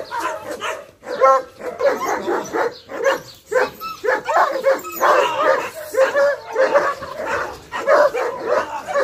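Dog barking and whining in quick, repeated bursts, several a second.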